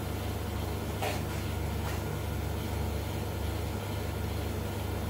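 Steady low electrical hum from a high-voltage flyback transformer driven by an NE555/MOSFET circuit, running a neon-argon discharge in an electrodeless tube. A brief scratchy noise about a second in, and a fainter one near two seconds.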